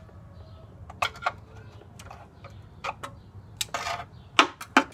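Channel-lock pliers clicking and knocking against the transmission's stuck inspection plate as it is forced down. There are about eight short, sharp clicks at uneven intervals, and the plate does not come loose.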